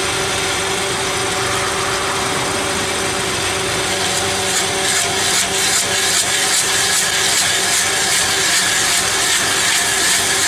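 A forestry wood-shredding machine's engine runs steadily. From about four seconds in, a repeated high rasping joins it as the cutter chews into wood.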